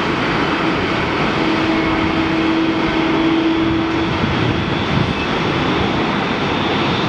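Boeing 777-200ER twin turbofan jet engines running, heard as loud, steady jet noise. A low steady hum stands out for a few seconds in the first half.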